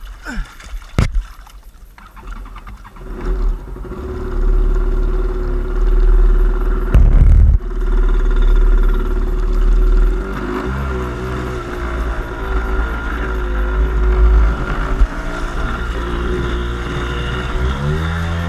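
A small boat's motor running under load, its pitch shifting as the boat turns, with a rising rev near the end.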